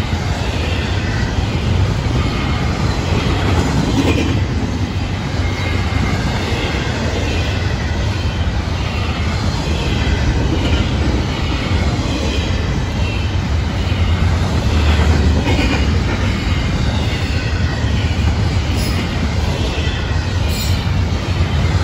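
Double-stack intermodal freight train's well cars rolling past close by: steady rumble of steel wheels on the rails, with a faint wavering high wheel squeal.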